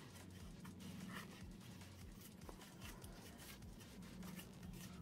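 Very faint rubbing and rustling of a cloth wiping old grease off a small airsoft pistol part, with light scratchy ticks scattered through, over a low steady hum.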